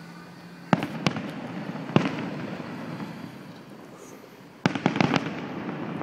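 Aerial fireworks shells bursting overhead: sharp bangs about a second in and again at two seconds, then a quick cluster of four or five bangs near the end, each trailing off into a rolling rumble. A steady low hum stops just before the first bang.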